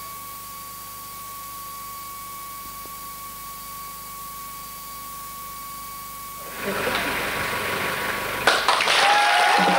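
Broadcast line-up test tone: one steady, high-pitched beep with a faint mains hum under it, cutting off after about six and a half seconds. It is followed by a rising wash of noise and a sharp hit near the end as the programme's music comes in.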